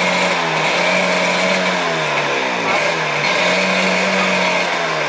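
Jet ski engine running with a steady tone that dips and climbs in pitch several times as the revs change.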